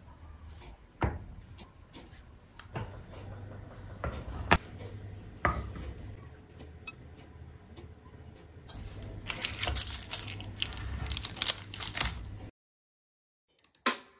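Kitchen handling: a few sharp knocks of cups and kitchenware being moved about. From about nine seconds in comes a steady splashing hiss of hot salep being poured into a glass cup, which stops abruptly.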